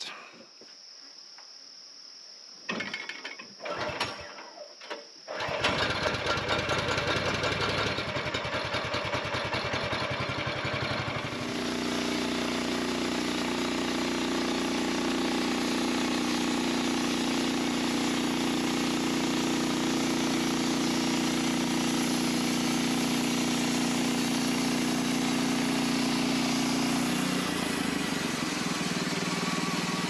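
A Norwood LumberMate portable bandsaw sawmill's engine starts about five seconds in after a few short sounds. About six seconds later it comes up to speed, and it runs steadily with the band blade turning for the first cutting pass. It eases off slightly near the end.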